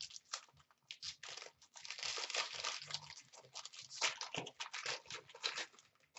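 A trading card pack's wrapper being torn open and crinkled by hand: an irregular run of crackles and rustles.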